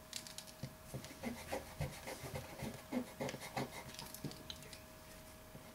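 Quick back-and-forth rubbing on drawing paper, about three scratchy strokes a second, stopping about four seconds in. It is most likely the artist erasing or scrubbing over a pencil line.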